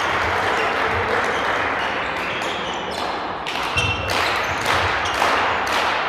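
Spectators in a sports hall: a steady wash of crowd noise, giving way about halfway to sharp rhythmic beats about twice a second as fans beat time.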